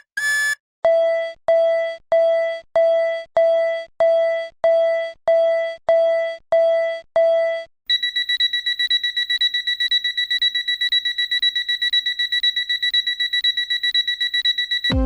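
Japanese railroad crossing warning bell: a pitched, quickly decaying 'kan' tone struck about twice a second, around thirteen times. About eight seconds in it switches to a higher-pitched, much faster ringing alarm.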